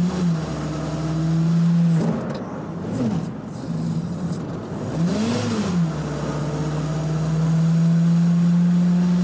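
Lada engine held at high revs driving the hydraulic pump, the drive straining under heavy load. A steady droning note whose pitch briefly swoops up and back down several times, then holds and slowly climbs toward the end.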